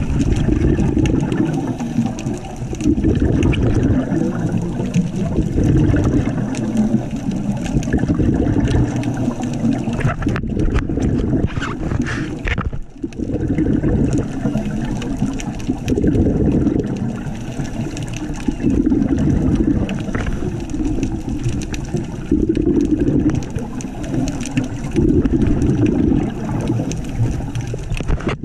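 A scuba diver's regulator breathing underwater: a burst of bubbles on each exhale, about every three seconds, with quieter gaps for the inhale between.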